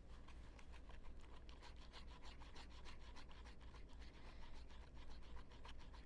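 Faint quick scraping of a stirrer against the inside of a small cup, several strokes a second, as yeast is mixed into very warm water.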